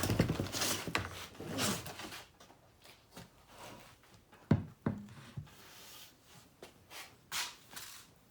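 Rustling and rubbing of packaging as a boxed air rifle is unpacked and handled, with two sharp knocks about four and a half seconds in.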